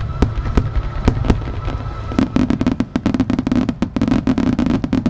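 Fireworks going off: separate booming shell bursts over a low rumble, then from about two seconds in a dense, rapid run of crackling pops.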